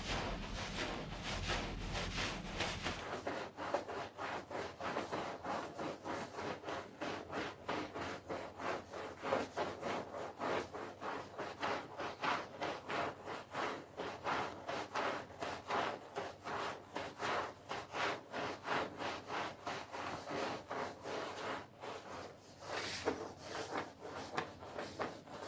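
Stiff brush scrubbing a wet carpet in quick, even back-and-forth strokes, about three a second. A low hum runs underneath for the first three seconds, then stops.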